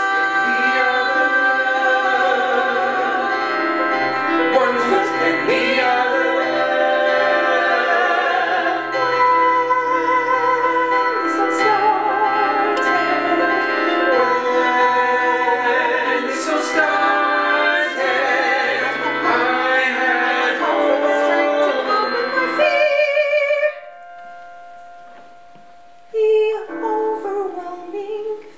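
Male and female voices singing a musical-theatre ensemble number in harmony over piano accompaniment. About 23 s in, the full sound drops away to one soft held note. Near the end, a lone voice comes back with a new phrase.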